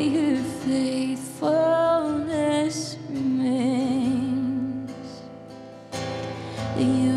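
A woman singing a slow worship song, held notes wavering with vibrato, while strumming an acoustic guitar. The music drops quieter about four and a half seconds in and comes back full about a second and a half later.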